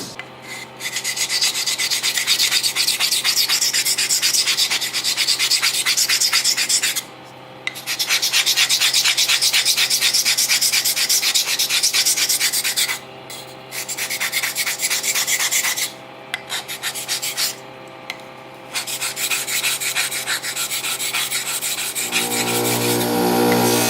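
Abrasive sanding of a knife's metal, a steady raspy rubbing in long stretches broken by short pauses, over a steady machine hum. Near the end the hum gets much louder.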